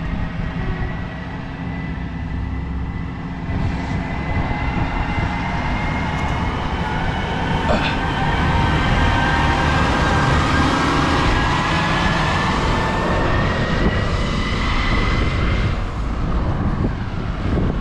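A vehicle driving, with a steady rumble and a faint high whine that slowly rises and falls.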